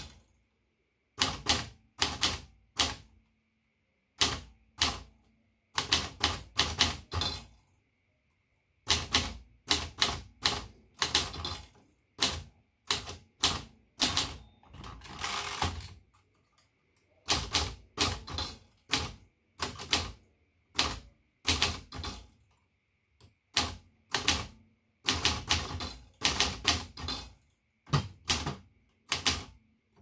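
Manual portable typewriter (Facit 1620) being typed on: quick runs of sharp typebar strikes against the platen, with short pauses between words and phrases. About halfway through, a brief high ring is followed by a second-long sliding rasp, typical of the margin bell and a carriage return.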